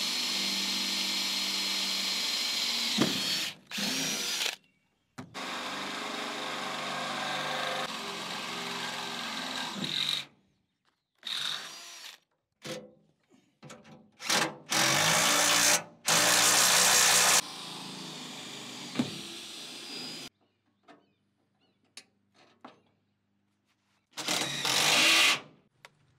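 Power drill drilling holes through a wooden flatbed deck. It runs in a series of separate bursts with short pauses between them. The longest run lasts about five seconds, and the loudest, harshest runs come a little past the middle.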